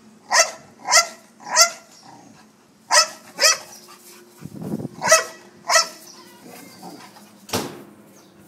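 A dog barking in short groups: three barks about half a second apart, then two, then two more. There is a low rough sound between the groups and a brief rushing noise near the end.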